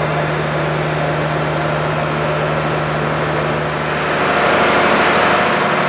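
Steady engine-like machinery hum with a constant low drone and a rushing noise, growing somewhat louder about four seconds in.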